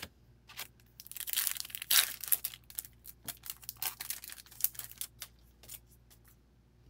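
Foil wrapper of a hockey trading-card pack being torn open and crinkled by hand. A dense burst of tearing and crackling about a second in is followed by scattered crinkles and clicks as the cards are handled, dying away near the end.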